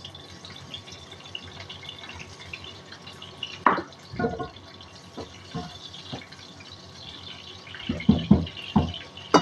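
Kitchen handling sounds: a stainless steel bowl clatters down on the counter a little before halfway, then a wooden spatula knocks several times against a wok near the end.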